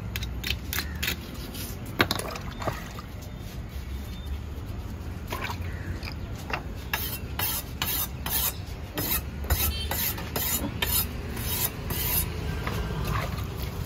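Knife blade scraping scales off a large catla fish in short repeated rasping strokes, about two a second through the middle, with one sharp knock about two seconds in.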